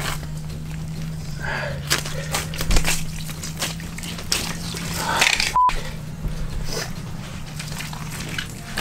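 Scattered soft knocks and rustles of a lake whitefish being handled and unhooked by hand on an ice-shelter floor, over a steady low hum.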